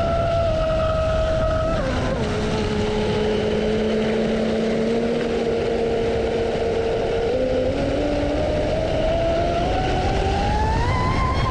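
A radio-controlled model vehicle running. Its pitched motor sound drops about two seconds in, holds steady, then climbs steadily toward the end as the throttle opens, over a constant noisy rush.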